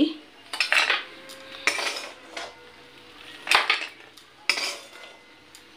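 Steel ladle scraping and clinking against a steel kadai and a steel bowl in about five separate short strokes, as fried potato badi are scooped out of the pan and tipped into the bowl.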